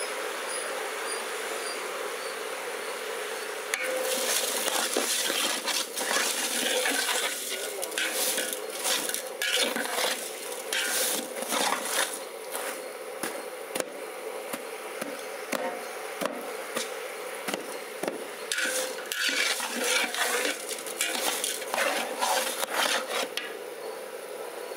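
Metal ladle scraping and clattering against a large aluminium cooking pot as chopped vegetables and spices are stirred and tossed. A quick run of scrapes starts about four seconds in, eases off midway, then picks up again before stopping near the end, over a steady background hum.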